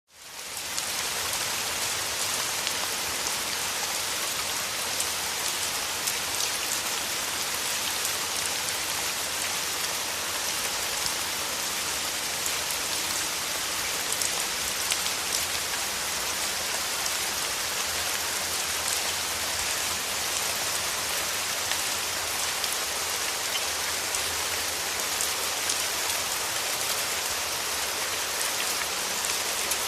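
Steady rain falling: a dense, even hiss with a fine patter of individual drops, fading in over the first second.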